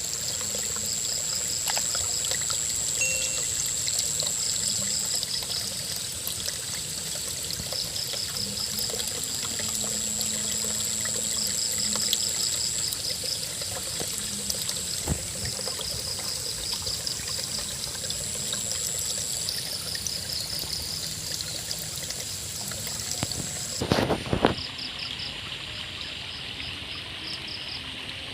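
River water flowing and trickling steadily, with insects over it: a steady high whine and rapid pulsing chirps. About 24 seconds in there is a short knock, and the high whine drops out.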